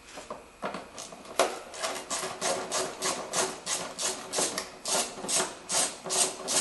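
A 10 mm ratchet on an extension clicking in quick back-and-forth strokes, about three a second, starting about a second and a half in, as it loosens a bolt on the air filter housing cover. The bolts are captive: they loosen but do not come out.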